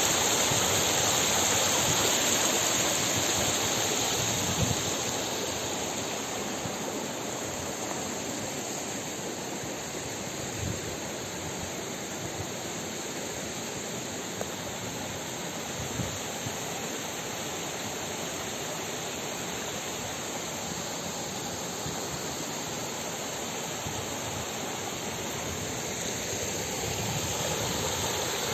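Small mountain stream rushing and splashing over rocks and ice, a steady rush that is louder at first, eases off in the middle and swells again near the end. A few faint knocks sound now and then.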